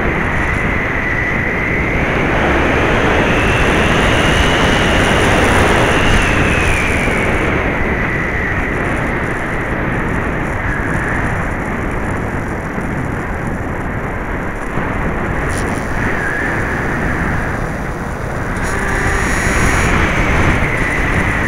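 Electric motor and propeller of an FPV-Raptor 1600 model plane whining in flight, picked up by its onboard camera along with heavy wind rush. The whine rises in pitch a few seconds in, falls back, and rises again near the end.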